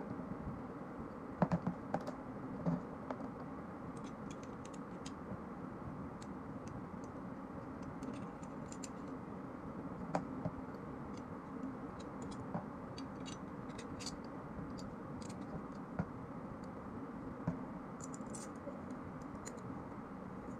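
Small metallic clicks and scrapes of a 30 bore (7.62×25 mm Tokarev) TT pistol's steel parts being handled and fitted together: the recoil spring and guide, the slide and the frame. The few louder knocks come about two seconds in, then irregular single clicks over steady background noise.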